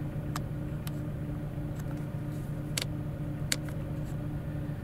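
Chevrolet Aveo's 1.6-litre four-cylinder petrol engine idling with a steady hum, with a few light clicks over it.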